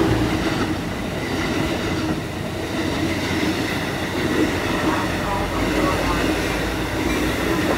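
Amtrak Acela Express trainset passing close by at speed: a steady rush and rumble of its cars and wheels on the rails.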